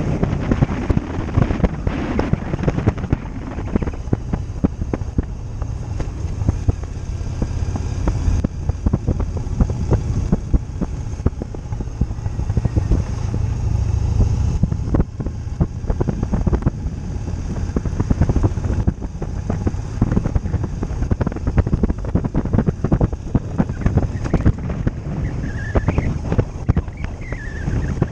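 Motorcycle riding along the road: a steady low engine and road drone under heavy wind buffeting on the microphone.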